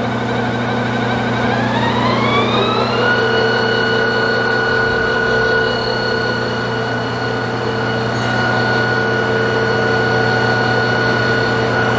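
Littleford M-5 lab plow mixer's 3 hp drive motor and plow shaft running. Its whine rises in pitch between about one and three seconds in as the variable speed is turned up, then holds steady at the higher speed.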